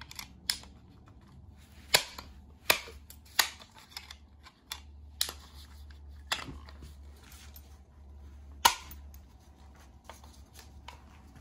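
Sharp metallic clicks and clacks of a Micro Draco AK-pattern pistol's steel parts being handled and fitted back together during reassembly, irregular and spread over several seconds.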